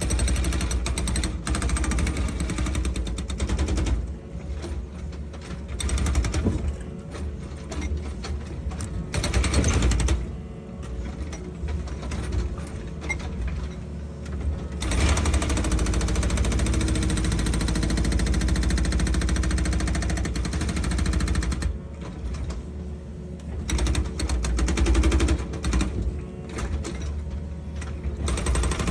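Excavator at work: machinery running with a rapid, hammering mechanical rattle that grows loud and eases off in turns.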